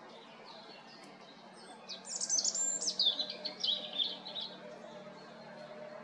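European robin singing one high, quick phrase of varied, warbling notes, starting about two seconds in and lasting about two and a half seconds.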